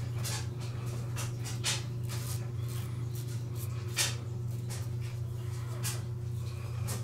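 Vikings Blade double-edge safety razor scraping through stubble on the neck in a series of short, irregular rasping strokes, the loudest about four seconds in, over a steady low hum.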